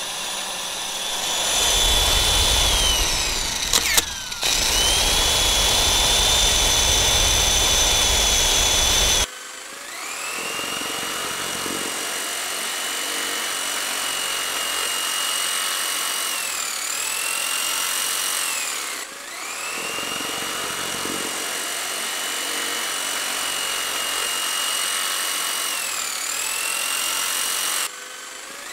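A looped, high-pitched machine whine sound effect. A louder stretch with a low rumble under it cuts off abruptly about nine seconds in. A thinner whine then rises in, holds steady, dips in pitch and climbs back, and the same pattern repeats once.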